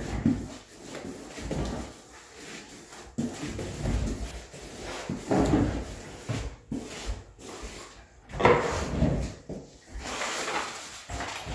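Paintbrush scrubbing glue onto a bare OSB subfloor along the wall, in irregular rubbing strokes with a few sharper knocks.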